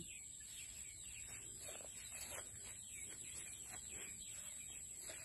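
Faint, scattered bird chirps, many short calls at irregular intervals, over a steady high-pitched tone.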